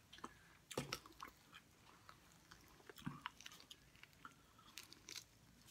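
Faint chewing and biting on chicken wings: scattered small clicks and mouth smacks.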